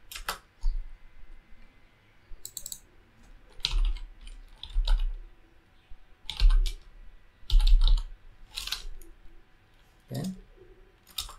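Computer keyboard typing in short bursts of a few keystrokes, with brief pauses between the bursts.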